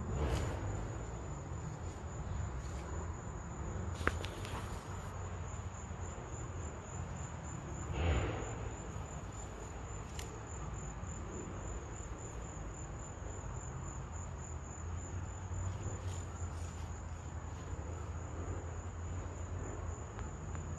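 Insects trilling steadily in the surrounding grass, one high, rapidly pulsing note, over a low rumble from a handheld phone's microphone. A sharp click about four seconds in and brief rustles near the start and again about eight seconds in come from the phone being handled.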